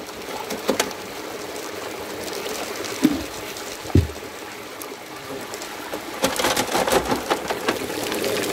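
Water rushing down a galvanized-steel gold-washing sluice over gravel and a riffle mat, with two dull thumps about three and four seconds in and a spell of clattering near the end.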